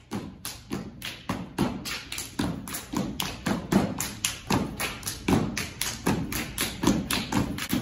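Fraternity step routine: feet stomping on a hard floor with hand claps and slaps, a fast, steady rhythm of about four strikes a second with heavy low stomps among them.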